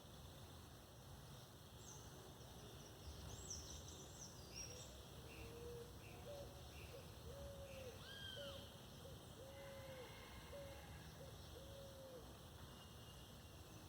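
Faint bird calls: a slow series of about ten short, low hooting notes, with higher chirps and a rising-then-falling whistle over it, above a steady low background rumble.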